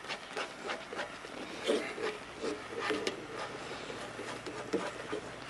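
Wooden spoon stirring and scraping thick flour gravy around a cast-iron skillet: a run of irregular soft scrapes and clicks.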